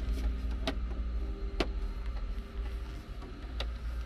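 Three separate short clicks from the buttons and switches of a Case IH Puma tractor's armrest multicontroller joystick as it is operated, over a steady low hum.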